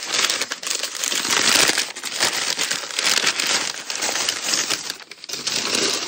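Newspaper and paper wrapping crinkling and crumpling as hands unwrap a small packed item, a continuous dense rustle with only brief lulls.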